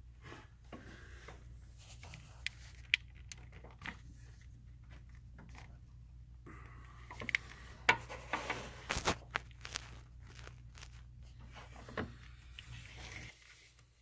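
Steel timing chain links clicking and rattling against the sprockets and guides as a hand pulls and flexes a newly installed timing chain on a GM 3.6 V6. A few sharp clicks, then a busier run of clicks and rattles around the middle, over a low steady hum.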